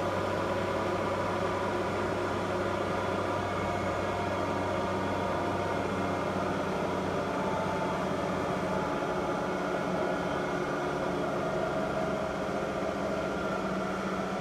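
Lagun FTV-1 vertical milling machine's spindle running steadily in high gear: very quiet, an even hum made of several steady tones. The deepest tone fades out about halfway through.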